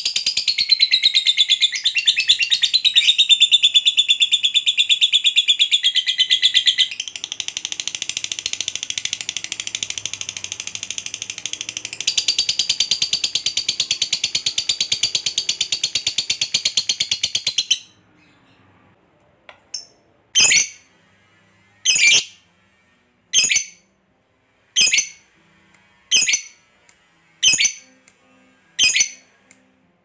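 Lovebird giving a long ngekek, an unbroken very fast chattering trill of about eighteen seconds that drops slightly in pitch at first. After a short pause it gives single short calls about every second and a half.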